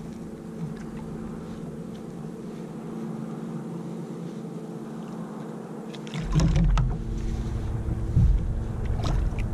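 Handling noise in a plastic fishing kayak. A steady low hum runs throughout, and about six seconds in a louder low rumble starts, with a few knocks.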